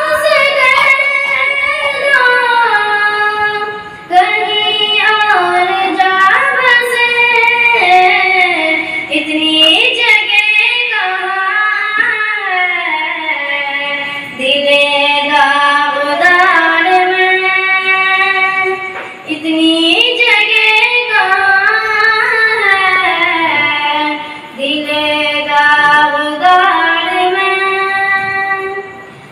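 A girl singing a naat, an Islamic devotional song, solo into a microphone, with no instruments: one voice in long, ornamented melodic phrases with brief pauses between them.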